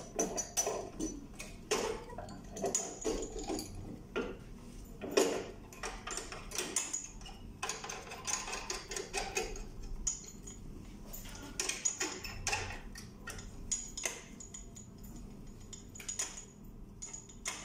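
Lamp module of a Pentax EPK-i7010 video processor being slotted and seated back into its housing by hand: a run of small clicks, taps and rattles, with one louder knock about five seconds in.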